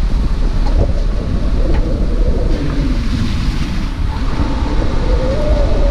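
Heavy wind buffeting on the microphone over a car's engine and tyres driving a dirt forest track. The engine's pitch falls through the middle and rises again near the end.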